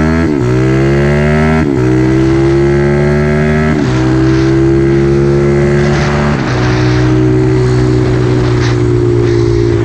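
Small single-cylinder four-stroke mini trail bike engine accelerating hard through the gears. Its pitch climbs, then drops sharply at each upshift: four shifts, the last about six seconds in, with the engine then holding a steadier speed.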